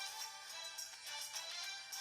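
A ringtone melody with a regular beat playing from the LG GW620 (Eve) phone's small loudspeaker. It sounds thin, with no bass.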